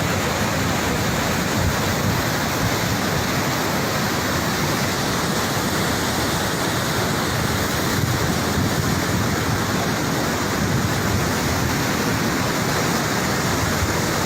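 Bolan River in flood: a steady, unbroken rush of fast-moving floodwater.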